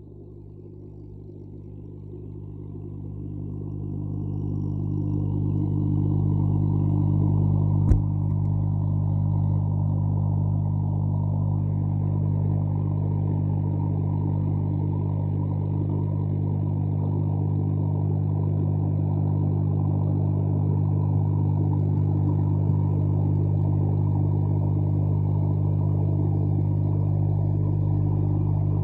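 A steady low motor-like rumble that swells up over the first few seconds and then holds level, with a single sharp click about eight seconds in.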